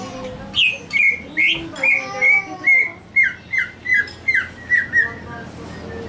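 Caged green leafbird (cucak hijau) calling: a run of about a dozen sharp, clear notes, some swooping down and some up, about two or three a second, stopping a little after five seconds in.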